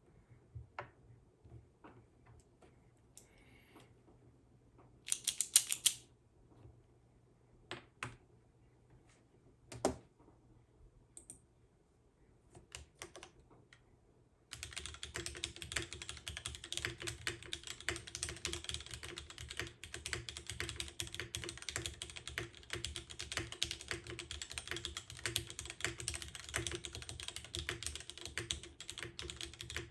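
Mechanical keyboard typing on a JJW Cloudline with lubed and filmed Cherry Vintage Black switches, an aluminium plate, no foam and SP DCS-profile keycaps. Scattered single keystrokes come first, the loudest a quick cluster about five seconds in. About halfway through, fast continuous typing begins.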